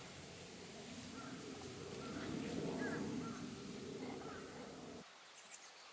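Outdoor ambience of birds chirping in short calls now and then over a low steady background noise; the background noise cuts off suddenly about five seconds in.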